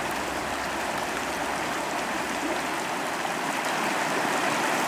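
Small mountain creek rushing steadily over a shallow riffle.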